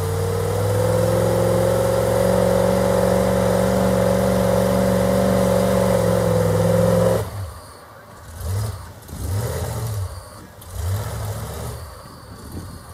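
Rock crawler buggy's engine held at high revs under load, steady for about seven seconds, then suddenly dropping off and coming back in several short throttle blips as it crawls over the obstacles.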